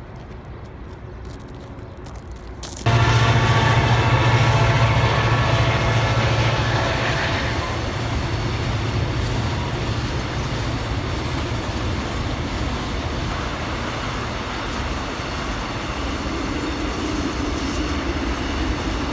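A train passing close by on the rails. It sets in suddenly and loudly about three seconds in, with a low drone and several steady high tones that fade after a few seconds, leaving a steady rumble.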